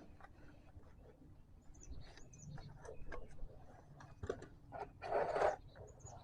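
Faint, scattered clicks and rustles of hands and tools working at a tractor's hydraulic filter, with a louder half-second rush of noise about five seconds in.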